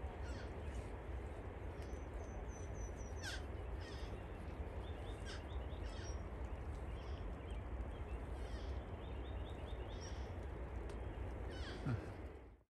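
Scattered short bird chirps and calls, some in quick series, over a steady background hiss; the sound cuts off abruptly near the end.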